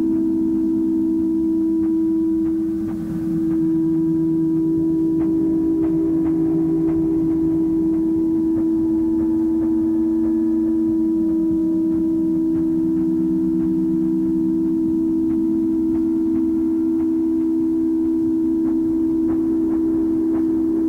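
Dark ambient music home-recorded on a four-track cassette recorder: one steady held drone, with lower tones beneath it that waver and slowly shift in pitch. The music dips briefly in loudness about three seconds in.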